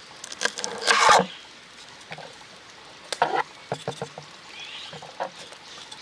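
Kitchen knife chopping green chillies on a wooden cutting board: a quick run of knocks about a second in, then single chops spaced out.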